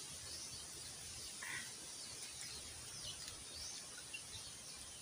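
Faint outdoor ambience with scattered short bird chirps and a steady high background hiss. One brief, slightly stronger call comes about one and a half seconds in.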